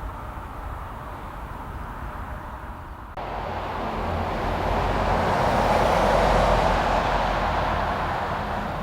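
Jet airliner passing close by: a quieter steady rumble gives way abruptly, about three seconds in, to engine roar that swells to a peak a little past halfway and then slowly fades.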